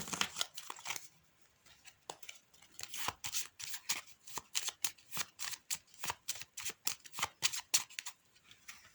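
A deck of playing cards being shuffled by hand: a run of quick, irregular card snaps and flicks, with a short lull about a second in.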